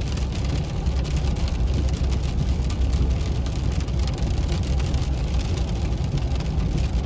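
Steady in-cabin noise of a car driving on a wet road in heavy rain: a low rumble of tyres and road, with rain pattering on the roof and windscreen.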